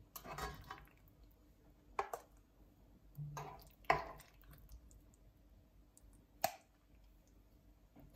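A metal spoon scooping thick chicken curry out of a frying pan: about five separate wet scrapes and light clinks of the spoon against the pan, a second or two apart, the sharpest about six and a half seconds in.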